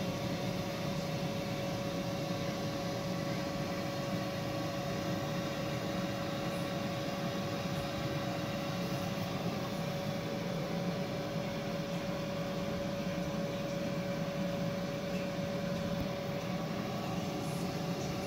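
Steady fan whir with a constant hum tone from a Ninja air fryer running on power from an FFpower BP2000 portable power station, which is delivering about 1,500 W.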